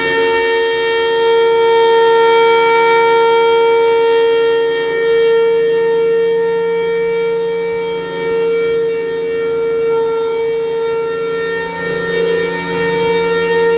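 Federal Signal Thunderbolt outdoor warning siren sounding a steady wail during its test. The loudness rises and dips every few seconds.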